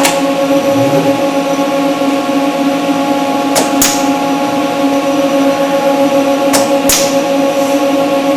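Steady machine hum made of several fixed tones, with two pairs of sharp clicks about a third of a second apart, a little over three seconds in and again a little over six seconds in.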